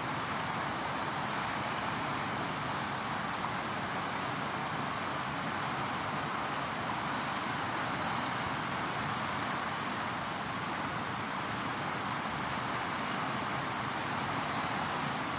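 Fast river running over rapids and past boulders at the bank: a steady, even rush of water that does not change.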